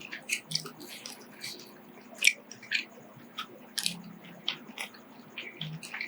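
Mouth sounds of someone eating instant noodles: irregular wet smacks and clicks of chewing, with a louder smack a little over two seconds in and another about four seconds in.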